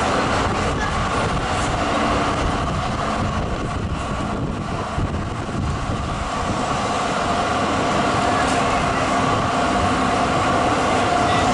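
Zürich tram running along street track, heard through an open side window: a steady rolling rumble of wheels on rails with a steady hum from the drive over it.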